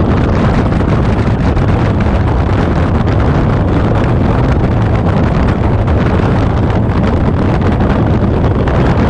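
Steady loud wind rush on the microphone of a motorcycle-mounted camera riding at road speed, with the bike's engine and road noise underneath.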